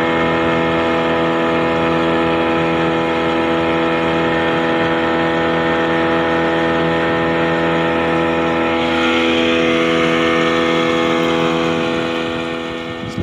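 Wooden fishing boat's engine running at a steady speed under way, with water rushing along the hull. The rushing gets louder about nine seconds in, and the sound fades a little near the end.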